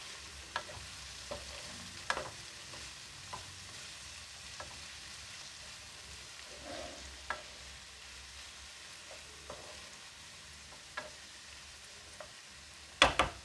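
Wooden spatula stirring and scraping spinach, onion and tomato frying in a nonstick pan, over a faint sizzle, with scattered light clicks. Two sharper knocks near the end are the loudest sounds.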